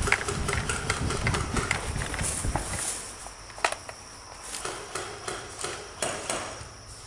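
Insects, likely crickets, chirping steadily, under close rustling and rumbling at the microphone for about the first three seconds. After that it is quieter, with a few sharp clicks.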